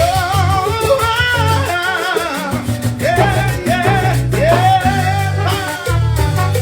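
Live Latin dance band playing, a lead voice singing over a steady bass line and percussion; the voice drops out near the end while the band plays on.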